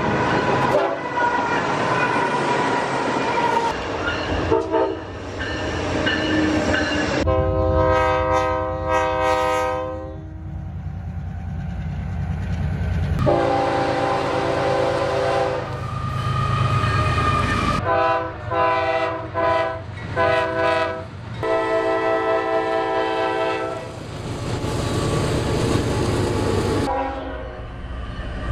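BNSF freight train passing with its locomotive's air horn blowing: several long blasts and a run of short ones over the rumble and wheel clatter of the train.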